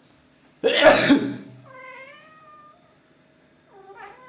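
A person sneezes loudly once, and a cat answers with a meow that bends in pitch, followed by a second, shorter meow near the end.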